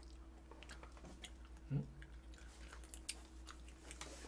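Quiet chewing of food, with scattered small clicks and smacks. A short low hum from a voice comes about two seconds in, over a faint steady hum.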